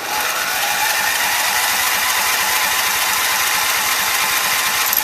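Craftsman lawn tractor's starter motor cranking the engine with the choke on, for about five seconds without it catching, then stopping abruptly. The engine fails to fire because, after sitting unused, fuel has not yet reached the carburettor's float bowl.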